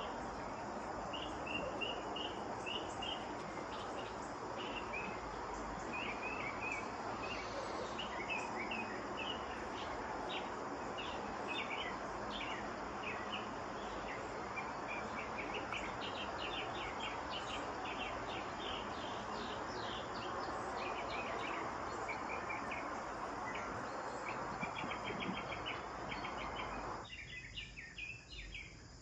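House sparrows chirping, many short calls in quick succession, over a steady background hiss that cuts off abruptly near the end.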